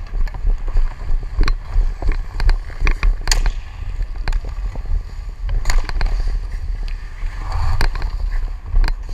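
Ice hockey skate blades scraping and gliding on ice, with irregular sharp clicks of a hockey stick blade tapping a puck, over a steady low rumble.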